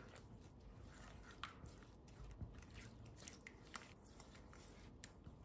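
Very faint wet squishing of a silicone spatula stirring spiced yogurt in a stainless steel bowl, with a few light ticks as it touches the bowl.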